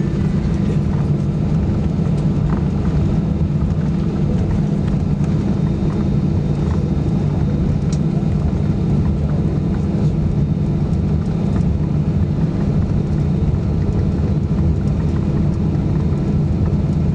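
Steady cabin drone of an Airbus A320-214 on the ground before takeoff, heard from a window seat: its CFM56 engines run at low taxi power and the cabin air system hums, with an even low hum and a few steady tones.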